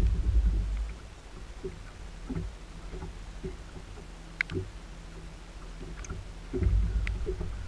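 Electric trolling motor of a bass boat running with a steady low hum, under low rumbling surges during the first second and again near the end, with a few faint ticks.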